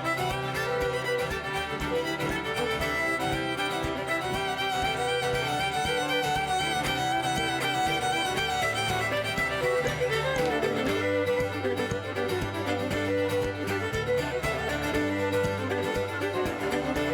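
A live old-time string band plays a traditional dance tune for contra dancing. Fiddles lead over guitar with a steady beat.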